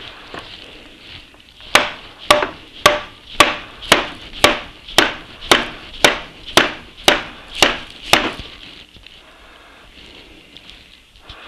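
Rubber mallet striking the end of an Atlas 10F lathe's headstock spindle: thirteen even blows, about two a second, then it stops. The blows are meant to drive the stuck spindle out through the headstock, and it is barely moving.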